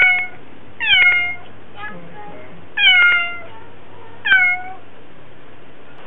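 Domestic cat meowing loudly four times, about one to two seconds apart, each meow dropping in pitch at its end: calling to wake its sleeping owner at night.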